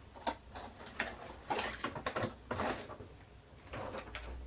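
Packaging being handled by hand as a mug set is unpacked: a run of short rustles and scrapes, loudest in the middle.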